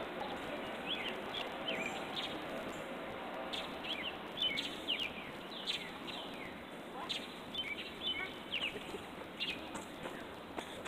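Outdoor ambience: a steady background hiss with small birds chirping now and then, short quick chirps scattered through.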